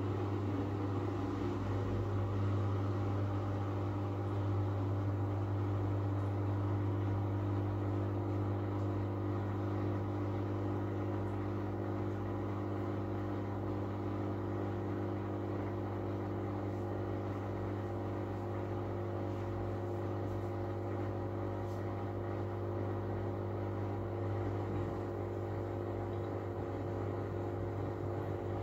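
Miele W433S front-loading washing machine running with a steady low hum and a few constant tones, in its first intermediate spin, which the suds detection (sudslock) holds back from speeding up.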